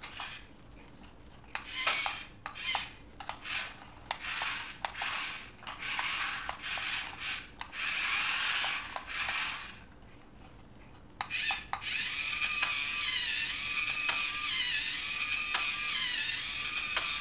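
Small plastic gear motors of a transforming RC robot car toy whirring in short bursts, with sharp plastic clicks, as it changes from robot to car. After a brief lull about ten seconds in, the motor whirs steadily and a tinny warbling electronic tune plays from the toy.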